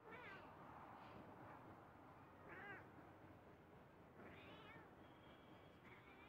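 A cat meowing faintly: about four short, arching meows, roughly two seconds apart.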